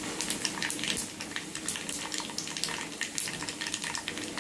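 Hot oil sizzling and crackling in a frying pan as dried red chillies, garlic, urad dal, cumin and mustard seeds fry for a tempering (tadka).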